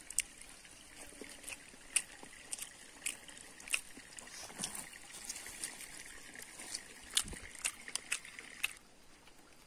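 Quiet streamside ambience: a steady trickling hiss under a faint steady high tone that stops near the end. Scattered sharp clicks and taps come from fingers picking rice off a banana leaf.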